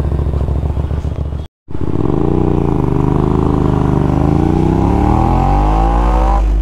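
Hyosung Aquila 250's two-cylinder engine idling with an even pulsing beat. After a short break in the sound about a second and a half in, it pulls away, its note rising steadily under acceleration before dropping near the end.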